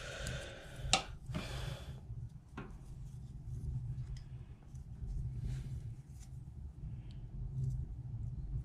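A few light metal clicks and rubbing as mole grips (locking pliers) are adjusted and clamped onto a mower's rubber fuel pipe, with a steady low hum underneath. The clicks come in the first few seconds, then fainter ticks.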